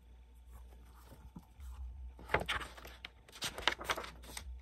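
Paper rustling from a hardcover picture book being opened and its pages turned by hand: a few short bursts of page noise starting about halfway through.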